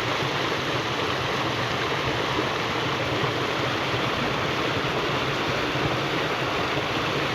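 Steady, even rushing noise that does not change, with no clear pitch or rhythm.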